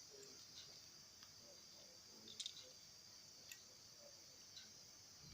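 Near silence with a steady high hiss, broken by a few faint clicks of pliers working copper wire, a small cluster about two and a half seconds in and single ticks later.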